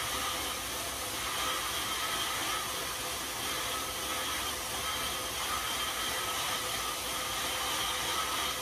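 Road bike tyres spinning on indoor cycling rollers, a steady even whir with faint constant tones, as the bike is pedalled hard.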